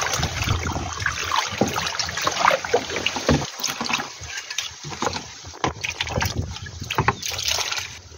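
Cleaning liquid sloshing and splashing in a plastic basin as a brake drum is scrubbed in it by hand, with irregular splashes and scrubbing strokes and liquid poured in from a jug.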